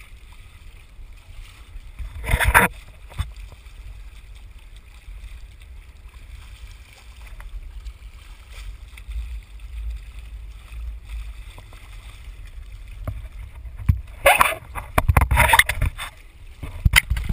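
Wind and water noise aboard a small Windrider sailing trimaran: a steady low wind rumble on the microphone, with loud bursts of rushing noise about two seconds in and several more near the end as gusts and spray hit the boat.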